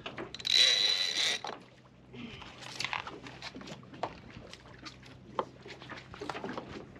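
Big-game reel's drag buzzing with a steady high tone for about a second as a hooked bluefin tuna takes line, starting about a second in. After it come scattered light clicks and knocks of the tackle as the reel is worked.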